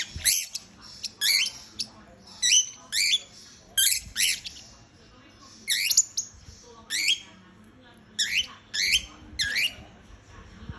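Pet birds squawking at each other in a squabble: short, sharp calls that sweep up in pitch, coming one or two at a time every second or so.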